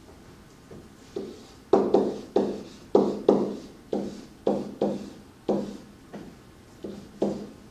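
Writing on a board: an irregular series of about a dozen sharp taps and knocks against a hard surface, each dying away quickly.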